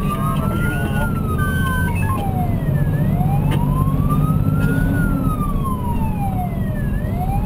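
Fire engine's siren wailing, its pitch sweeping slowly up and down about once every four seconds, heard from inside the cab over the truck's low engine and road rumble.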